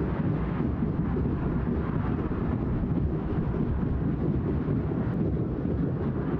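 Large football stadium crowd making a steady rumbling roar, dense and even throughout.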